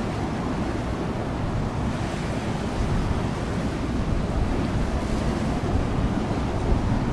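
Wind buffeting the microphone as a low, steady rumble, over the even rush of a choppy, wind-whipped sea.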